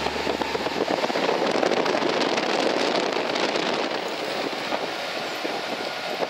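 Steady rushing wind and road noise of a car driving, heard from inside the car.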